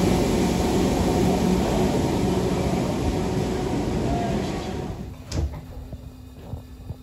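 Merseyrail Class 507 electric multiple unit pulling away from the platform into a tunnel, its motors and wheels running loud and slowly fading as it recedes. About five seconds in, the sound cuts to the quieter inside of a train carriage, with a low steady hum and a few clicks.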